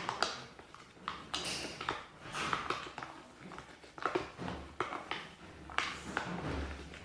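White glue with colouring, dish detergent and moisturiser being stirred in a container: irregular sticky, wet scraping and clicking.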